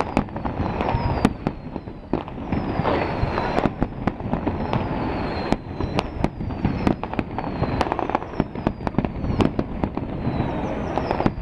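Fireworks display: a dense run of bangs from bursting aerial shells over continuous crackling. A high whistle falling in pitch repeats about once a second.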